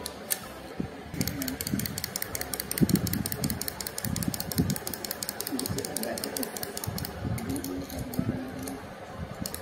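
Mechanism of a hopping plush chick toy clicking rapidly, about eight to ten clicks a second, dying away shortly before the end.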